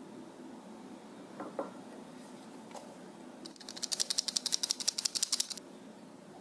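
A fast, even train of light, sharp clicks lasting about two seconds, starting about three and a half seconds in, after a few single soft taps.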